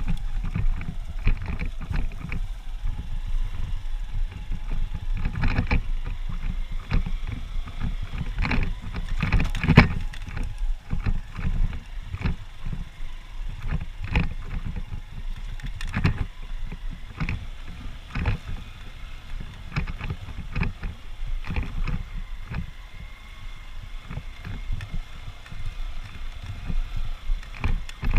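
Honda CG125's single-cylinder four-stroke engine running while the motorcycle rides over rough off-road ground, with frequent knocks and jolts and wind on the microphone.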